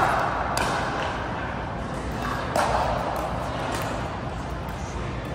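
Pickleball paddles striking a hard plastic ball in a rally: sharp pops that ring and echo around a large indoor hall. The pops come at the start, about half a second in and about two and a half seconds in, over a steady background of hall noise.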